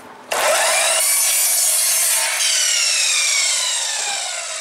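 Harbor Freight 12-inch double-bevel sliding miter saw starting up with a rising whine, its blade cutting through a 1x4 pine strip at a 22.5° angle, then released and winding down with a long falling whine.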